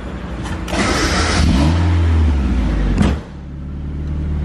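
Mazda NA Miata engine revved for about two seconds, then dropping back suddenly to a steady idle.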